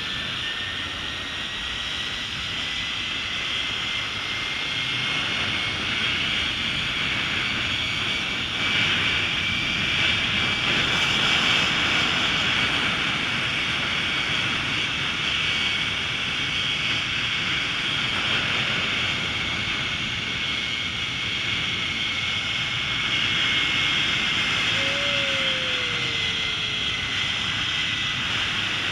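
Zip-line trolley pulleys running along the steel cable with a steady high whine that rises slightly in pitch and then slowly falls away near the end, over a continuous rush of wind.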